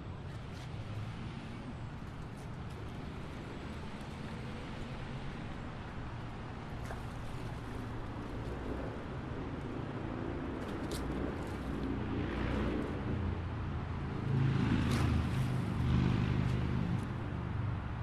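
Highway traffic: the steady low rumble and tyre noise of passing vehicles, swelling louder about two-thirds of the way in and peaking near the end, with a few faint sharp ticks.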